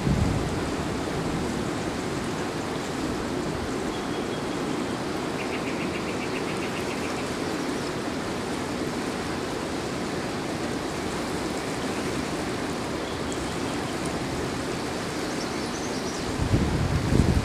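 Steady rushing of the Rio Grande's current flowing past, with a gust of wind buffeting the microphone near the end.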